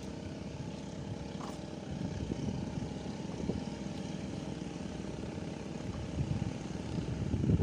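Strong wind buffeting the microphone in an irregular low rumble, over a steady motor hum.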